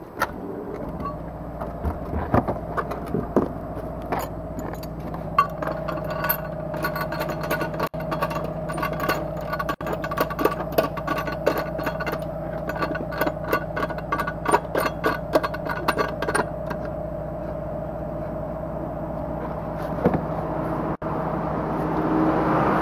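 A temporary spare wheel being set into a car's spare-tyre well and its centre hold-down nut screwed down by hand: a quick run of metallic clicks and rattles for several seconds. A steady machine hum runs underneath.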